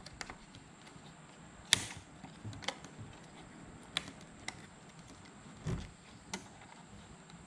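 Small plastic clicks and taps as wiring connectors are worked loose from the plastic back plate of a side-mirror glass, with one sharper click about two seconds in and a duller knock later on.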